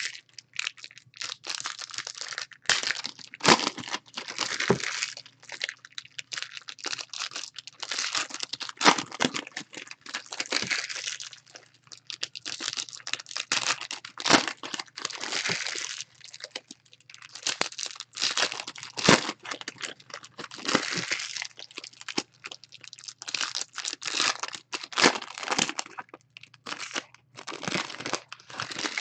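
Plastic wrappers of trading-card packs being torn open and crumpled in the hands: an irregular run of crinkles, rustles and sharp crackles.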